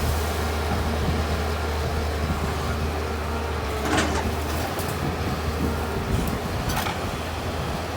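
Excavator diesel engine running steadily while clearing brush, with a few short sharp knocks or cracks, the clearest about four seconds in and another near seven seconds.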